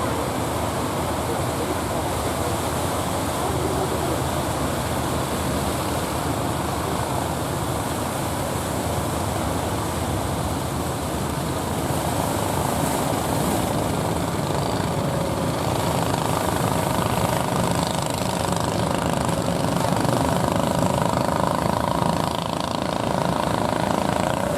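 Steady rush of heavy surf breaking at the shore. An engine's drone joins it about two-thirds of the way in.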